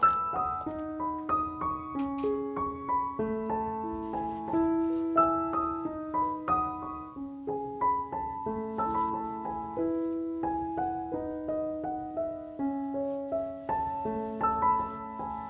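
Background piano music: a gentle melody of single held notes over a steady pattern of lower notes.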